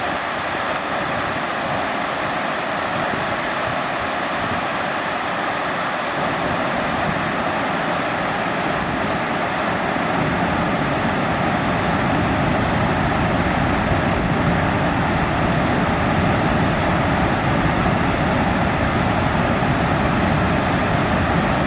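Water rushing over a rocky lake spillway and churning through the rapids below, a steady loud rush of white water that gains a deeper rumble from about six seconds in.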